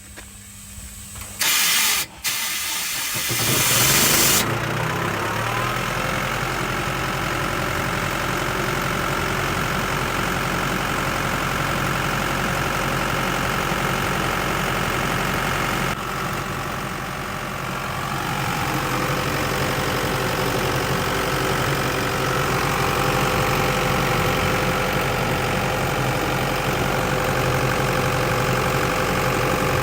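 Chicago Pneumatic GPS400 portable air compressor's diesel engine being started. The starter cranks about a second and a half in, with a short break, and the engine catches within a few seconds. It then runs steadily, dipping briefly in level about halfway through before picking up again.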